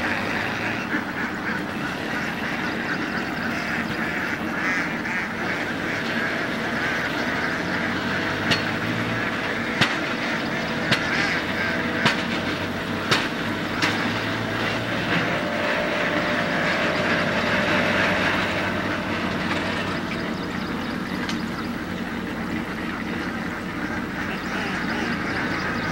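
A large flock of domestic ducks quacking and chattering continuously, many birds at once. Beneath it runs a low steady hum, and about six sharp clicks stand out in the middle of the stretch.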